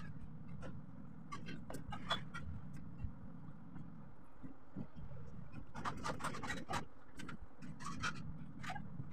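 Graphite pencil scratching on paper in short strokes, with a thick cluster of quick strokes about six seconds in, over a steady low hum.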